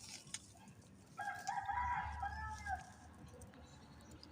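A rooster crows once, faintly, starting about a second in and lasting about a second and a half, its pitch dropping at the end.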